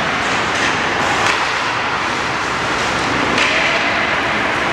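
Ice hockey game noise in a rink: a steady wash of skates on ice and spectators, with a few sharp clacks of sticks and puck.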